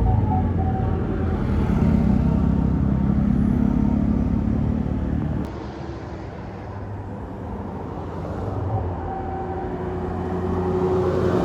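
Large bus's diesel engine passing close by with a heavy rumble. It drops off abruptly about five seconds in, and engine and road noise build up again near the end.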